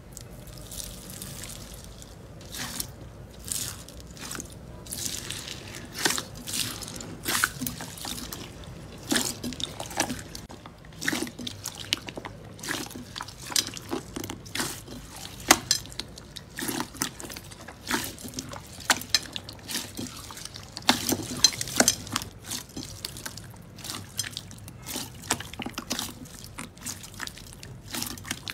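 Clear pink slime being pressed and squeezed by hand in a bowl: wet squishing with many sharp, irregular crackles and pops as air pockets burst.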